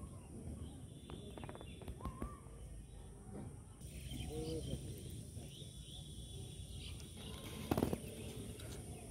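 Quiet riverside outdoor ambience: a steady low rumble, a few short bird-like chirps, a brief pitched call about halfway, and a faint thin high insect-like tone in the middle. A couple of sharp clicks near the end.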